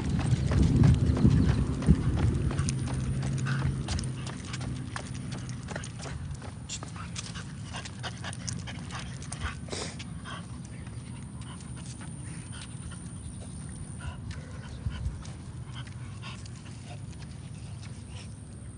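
French bulldog's breathing as it walks on a leash, loudest in the first few seconds, with a run of short footstep taps on the concrete sidewalk.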